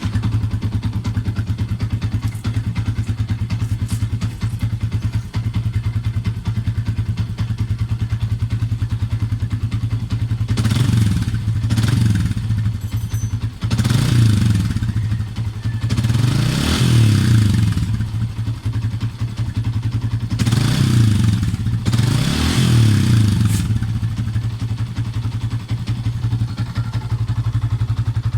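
Yamaha Sniper 150's single-cylinder four-stroke engine idling through a gutted, shortened ('kalkal') stock exhaust, with a steady pulse. Partway through it is revved in about six quick throttle blips, each rising and falling, then settles back to idle.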